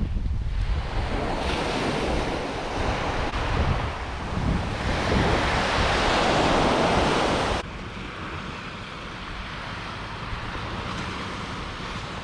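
Surf washing onto a sandy beach, with wind buffeting the microphone. The rush swells in the middle and then drops off suddenly about two-thirds of the way in, leaving a quieter, steady wash.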